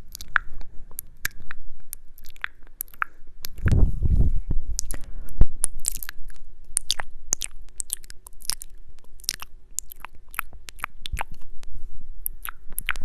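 Close-miked mukbang eating: chewing and biting, with many sharp crunchy clicks throughout. A deeper, louder burst comes about four seconds in.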